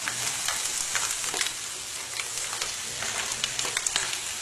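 Pan of fresh mussels cooking in their own liquid with olive oil and ginger, a steady crackling hiss with scattered sharp clicks.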